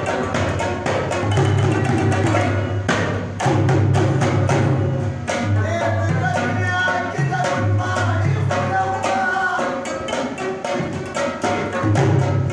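Pashtun folk music: a rabab plucking a melody over a hand drum beating a steady rhythm.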